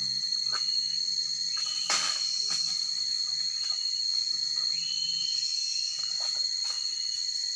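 Insects droning steadily in one continuous high-pitched tone, with a single sharp click about two seconds in.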